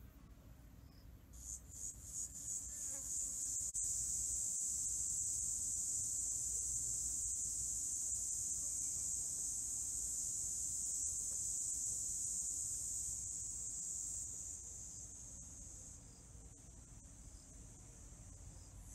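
A high-pitched insect trill: it starts as quick pulses about a second and a half in, swells into a steady buzz, and fades somewhat near the end.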